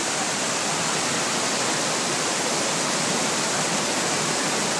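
Steady rushing hiss of a plaza fountain's water jets spraying and splashing onto wet paving.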